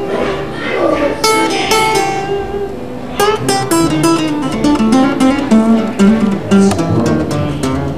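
Guitar playing quick picked notes and runs, with some strumming; the notes come thick and fast from about three seconds in.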